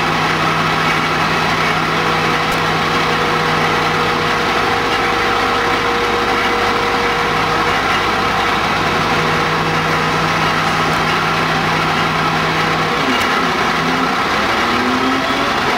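Fire appliance engines running steadily, a continuous drone; the lowest part of the hum falls away briefly near the end.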